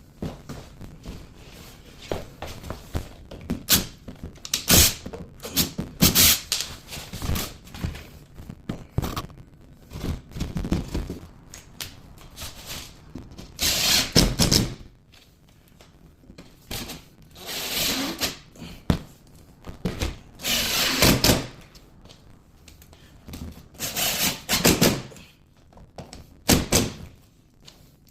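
Power drill driving screws through a drywall patch, in a series of short bursts of about a second each with pauses between, and a few knocks as the patch and screws are handled.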